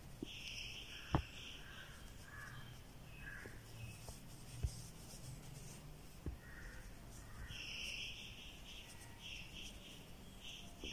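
Faint high insect trills, like crickets, come and go in a few short spells. A few soft taps are heard, the sharpest about a second in.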